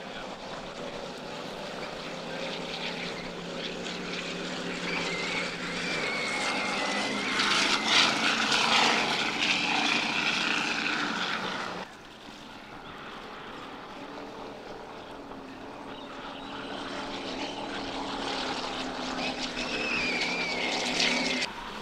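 Offshore racing powerboats running flat out past the shore, their engines a heavy drone with a gliding high whine. The sound swells as a boat comes past, cuts off suddenly about twelve seconds in, then builds again as another boat approaches and cuts off near the end.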